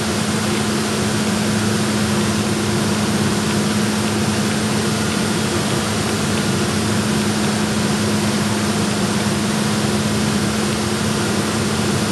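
HHO (oxyhydrogen) torch flame hissing steadily, with a steady low hum underneath.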